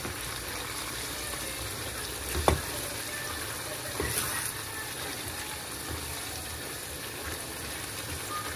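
Thick tomato-pepper chicken sauce sizzling steadily in a non-stick frying pan as it cooks down, stirred with a wooden spatula. A sharp knock about two and a half seconds in, the loudest sound, and a lighter one at about four seconds.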